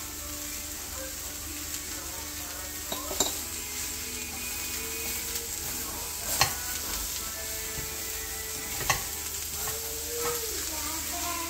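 Green beans sizzling in hot oil in a pan while a wooden spatula stirs and tosses them, with three sharp knocks of the spatula against the pan along the way.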